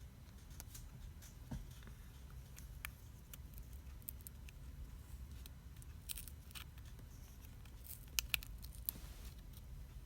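Faint, scattered clicks and light scrapes of small tools and plastic parts handled inside a smartphone being taken apart, with a few sharper clicks near the end. A faint steady low hum runs underneath.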